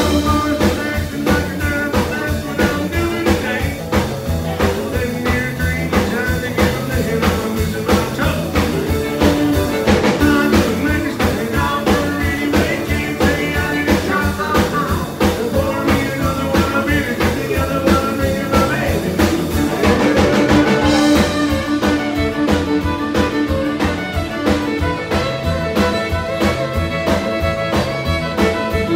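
Live country band playing with a steady drum beat: acoustic guitar, bass, drums and fiddle, with a woman singing. Near the end the fiddle takes the lead.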